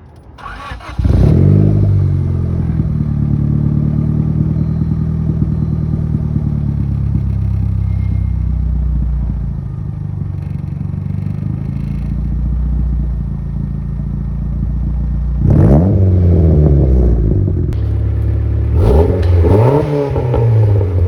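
Turbocharged EK Honda Civic's engine running through a new 3-inch Skunk2 MegaPower RR exhaust. It flares up about a second in and settles to a steady idle, is revved once briefly about fifteen seconds in, then revved twice more near the end.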